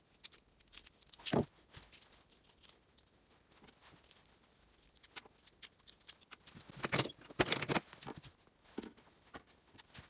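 Scattered light knocks and clicks of small objects being handled, with a stronger knock about a second in and a quick cluster of clicks around seven seconds in.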